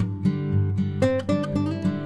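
Background music played on acoustic guitar, strummed and picked notes.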